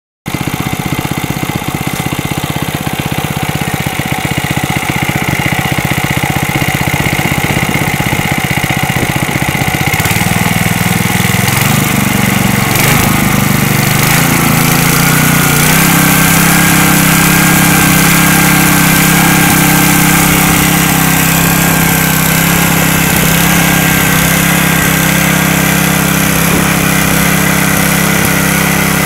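Robin EY15B single-cylinder air-cooled engine with reduction gearing, running loudly: slow and pulsing at first, then its speed rises in steps about ten seconds in and it settles into a steady faster run. The running noise is somewhat loud, which the seller puts down to a somewhat worn engine.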